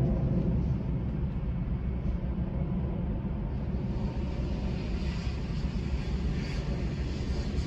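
Distant low rumble of a Lufthansa Airbus A330-300 jet airliner's engines (Rolls-Royce Trent 700s) in flight, heading away and fading slightly.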